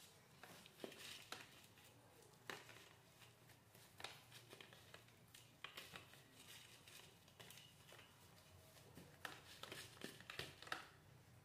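Faint rustling and crackling of potting mix being handled and pressed into the pot around the plant, with scattered light clicks.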